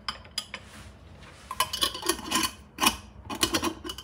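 A glass jar and its lid clinking and clattering as they are handled on the counter: a few short clicks at first, then a run of ringing clinks from about a second and a half in.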